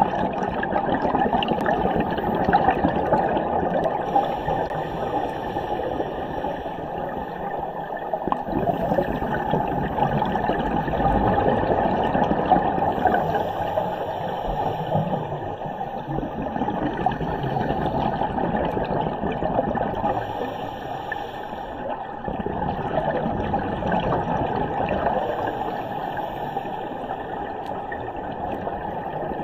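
Scuba divers' exhaled bubbles gurgling from their regulators over a steady muffled underwater rush, heard from inside a camera housing below the surface.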